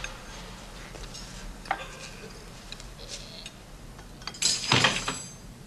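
Cutlery and china clinking at a dinner table: scattered light clinks that ring briefly, then a louder clatter of several clinks about four and a half seconds in.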